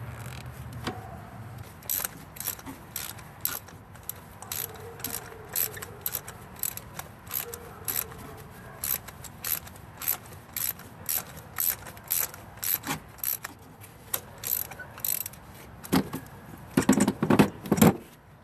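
Small hand ratchet clicking in a steady run of pawl clicks, about two to three a second, as it turns a fastener down at an ignition coil on the engine. Near the end comes a louder, denser burst of clicking and clatter.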